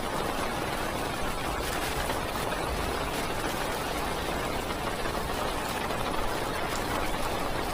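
Heavy rain pattering steadily on a parked car's roof and windows, heard from inside the car as a dense, even hiss of small taps.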